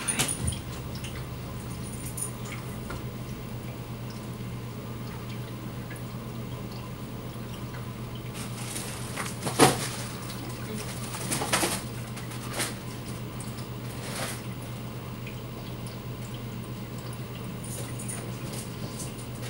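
Aquarium filter running: a steady low hum with faint water trickling and dripping, and a few brief louder sounds about halfway through.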